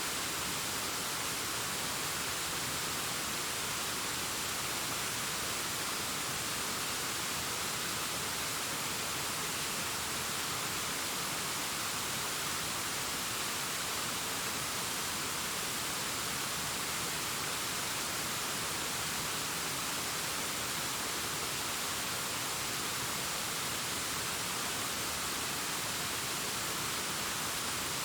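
Distant waterfall cascading down a rockface: a steady, even hiss of falling water that does not change.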